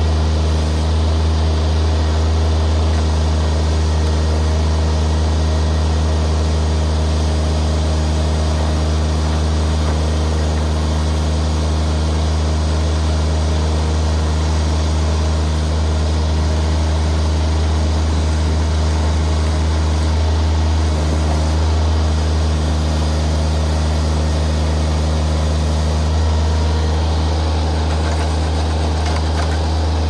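Baumalight TRL620D mini skid steer's engine running steadily with a strong low hum while it drives a hydraulic auger boring a post hole into the ground.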